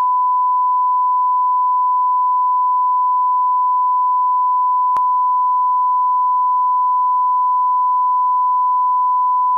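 Steady 1 kHz sine test tone, the broadcast line-up tone that runs with colour bars for setting audio levels. It is loud, with a faint click about halfway through, and it cuts off abruptly near the end.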